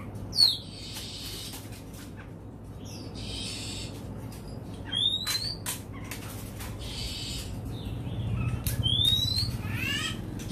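Oriental magpie-robin singing: a few loud, clear whistled notes that sweep up or down, the loudest about half a second in, with harsh scratchy notes between them and a quick run of falling notes near the end.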